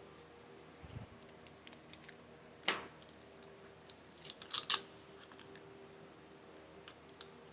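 Light clicks and clinks of small metal engine parts and tools being handled, with one sharp click a little before the middle and a quick cluster of clinks just after it.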